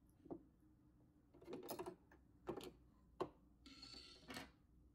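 Faint, scattered clicks and taps as the metal needle plate of a Brother LX3817 sewing machine is handled and taken off, with a brief scraping hiss near the end.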